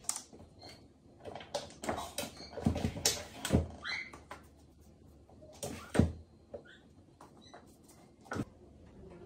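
A cat batting and pawing at a stainless-steel fridge door: a series of irregular knocks and thumps against the door, the loudest about six seconds in.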